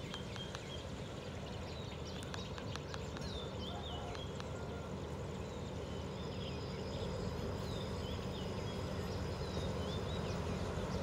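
Diesel engine of an approaching Alsthom AD24C diesel-electric locomotive running, a steady low rumble that grows gradually louder as the train nears. A bird calls over it repeatedly, short hooked chirps about once a second.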